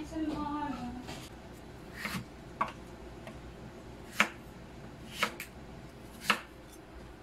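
Kitchen knife cutting through raw potatoes on a wooden chopping board: about six sharp, irregularly spaced knocks as the blade hits the board, the loudest about four seconds in.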